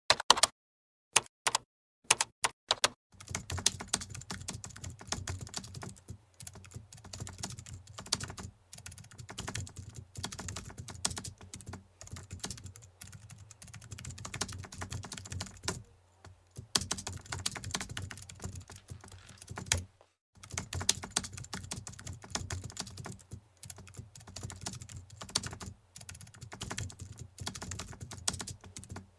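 Computer keyboard typing sound effect. A few separate keystrokes come over the first three seconds, then fast continuous typing follows, broken by two short pauses past the middle.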